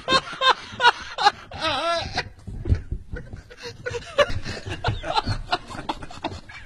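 Several men laughing hard and uncontrollably, in a rapid series of short bursts, with a higher wavering laugh about two seconds in.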